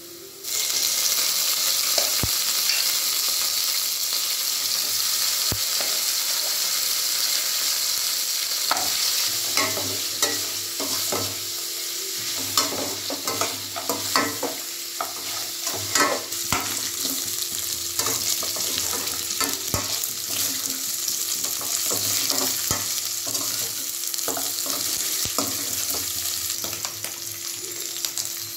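Boiled mutton pieces hitting hot oil and fried onions in an aluminium kadai: a sudden loud sizzle about half a second in, then steady frying. From about nine seconds on, a metal spatula scrapes and clinks against the pan as the meat is stirred.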